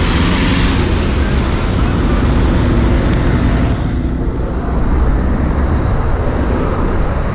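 Steady road traffic noise with a low rumble of engines, and wind buffeting the microphone; a hiss fades away about four seconds in.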